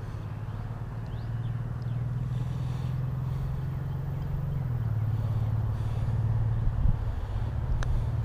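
Steady low hum of a running motor, its pitch shifting slightly about halfway through.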